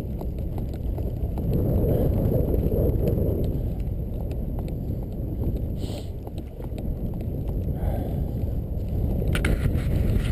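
Dog sled gliding along a snow trail behind a running team: a steady low rumble and hiss of the runners on snow, with frequent small clicks and rattles from the sled and a brief sharper clatter near the end.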